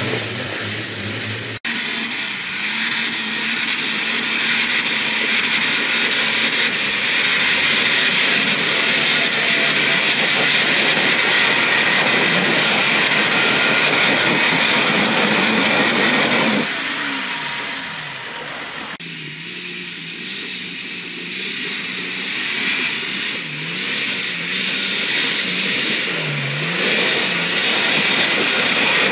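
Nissan Patrol off-road 4x4s revving hard under load as they claw up a slope of loose rock. The sound changes abruptly at edit cuts. Near the end the engine note rises and falls in several quick revs.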